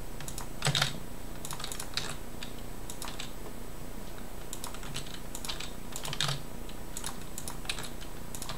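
Computer keyboard keys being pressed: irregular sharp clicks, singly and in short runs, as shortcut keys are struck while working in software.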